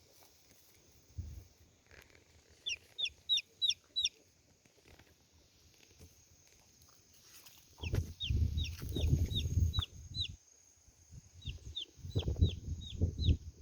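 Chicks peeping: three runs of five to seven quick, falling high notes, with low rumbling noise under the second and third runs.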